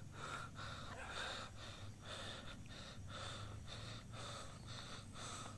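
A man's rapid, heavy breathing, a breath about every half second.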